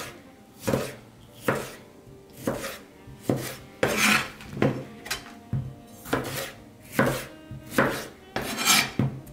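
Kitchen knife cutting tomatoes on a wooden cutting board, about ten strokes at an uneven pace of a little over one a second, each slice ending in a knock on the board.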